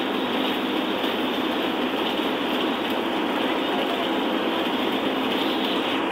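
Steady engine and tyre noise heard inside a bus cab cruising at road speed, an even rushing drone with no breaks or changes.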